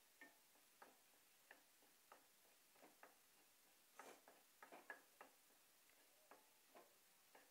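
Faint, uneven taps of a stirring utensil knocking against the pan as fried egg is stirred, about one or two a second, with a quick cluster of knocks about halfway through.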